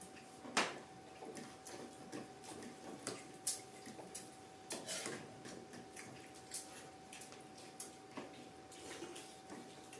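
Irregular light clicks and taps from eating with utensils at a meal, over a faint steady tone.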